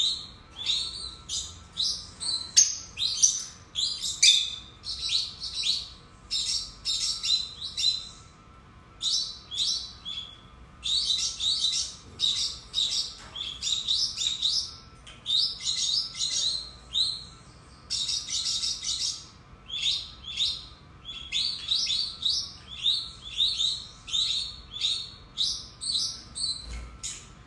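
Lutino rosy-faced lovebirds chattering: rapid, high-pitched chirps in quick runs, broken every few seconds by short pauses of about a second.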